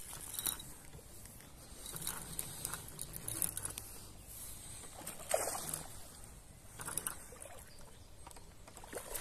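Carp splashing and swirling at the pond surface close to the bank. There are a few sudden splashes, the loudest about five and a half seconds in, over a steady outdoor hiss.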